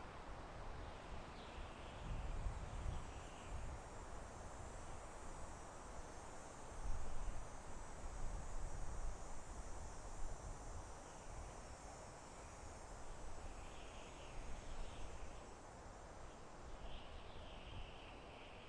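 Soft wind blowing through a forest, rising in gusts and easing off. Faint short chirps sound now and then, a few times near the start and again near the end.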